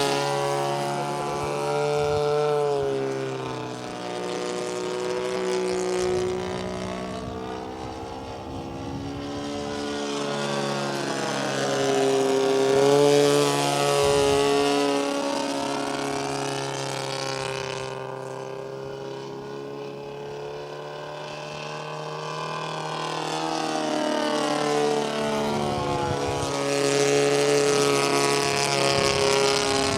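Twin-cylinder ASP 160 engine of a Seagull Decathlon 120 RC airplane running in flight, a steady propeller drone that rises and falls in pitch and loudness as the plane makes several passes.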